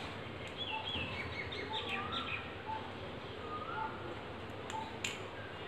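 Small birds chirping in the background: short whistled notes repeating about once every second, and a quick run of falling chirps in the first half. A sharp click about five seconds in.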